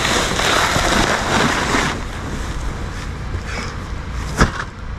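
Wind buffeting the microphone: a low, uneven rumble with a gusty hiss that is strongest for the first two seconds and then eases. A single sharp click about four and a half seconds in.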